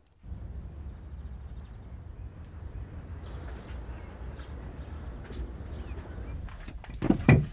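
Outdoor ambience with a steady low rumble and faint bird chirps, then a few heavy thuds near the end.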